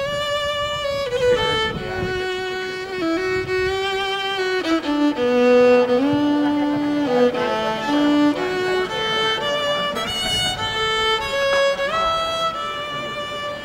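Background music: a violin playing a melody, one note at a time, with some notes held for about a second.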